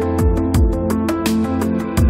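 Background music with a steady beat: held melodic notes over regular drum hits.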